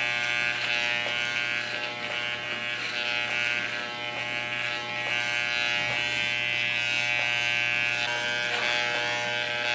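Corded electric hair clippers with a guard comb buzzing steadily as they trim the hair around a boy's ear and the side of his head.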